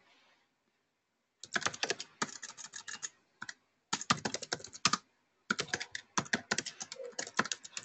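Computer keyboard typing: quick runs of keystrokes that start about a second and a half in, broken by short pauses.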